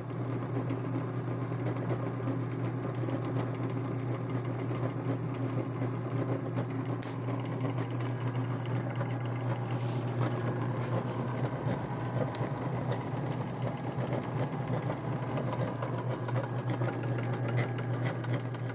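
Salvaged 1/3-horsepower clothes-dryer electric motor running, turning a V-belt and pulley on a secondary shaft in pillow-block bearings. A steady low hum sits under a busy mechanical clatter.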